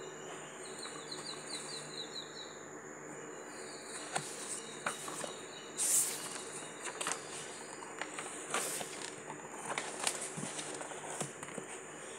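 A bird chirping a quick run of about seven notes, then scattered light clicks and taps with a brief rustle about six seconds in, over a steady high-pitched tone.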